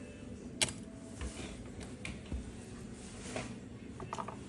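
Small clicks and taps of hand tools at a repair bench during a PS5 HDMI port replacement: one sharp click about half a second in, then a few lighter ticks over a faint steady background hum.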